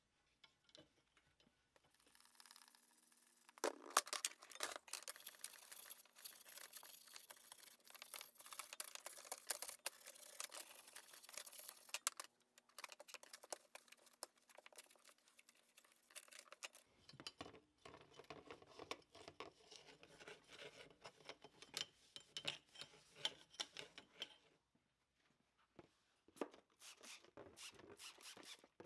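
Shop rag rubbing and scrubbing the metal end bell and stator of an old electric motor, an irregular scraping and swishing, with light clicks from tools and parts being handled near the end.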